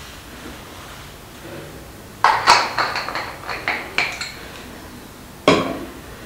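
Plastic lotion bottle being handled: a quick run of clicks and rattles from its cap for about two seconds, then a single sharp knock as it is set down on the counter.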